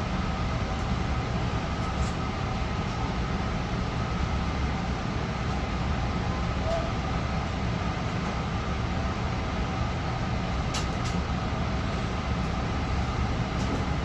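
LIRR M3 electric multiple-unit train running, a steady low rumble with a faint even whine, and a couple of light clicks about eleven seconds in.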